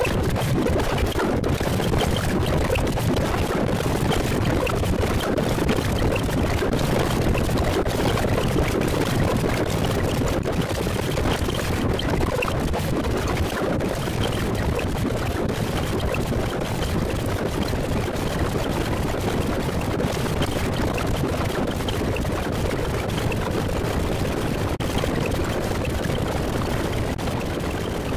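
An animated cartoon's soundtrack sped up to double speed and heavily distorted, heard as a steady, dense wash of harsh noise with no clear tune or voice.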